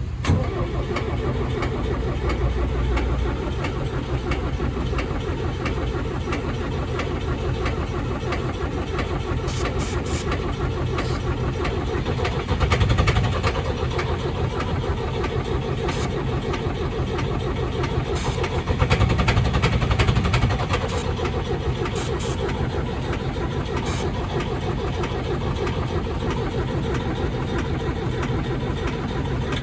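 Case 555C backhoe's diesel engine cranking on ether and catching roughly, running unevenly with two louder surges, one about midway and one about two-thirds in. It won't run properly on its own fuel: the fuel filter is only about half full, so the engine isn't picking up fuel.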